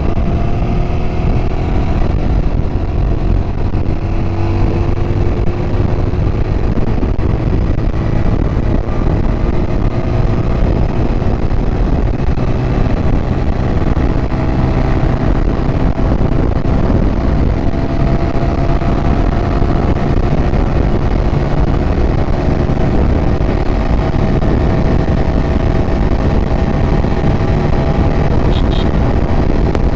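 TVS Apache RTR 200 4V's single-cylinder engine pulling hard in fifth gear, its note rising slowly and evenly as the bike accelerates toward top speed. Heavy wind rush on the microphone runs under it.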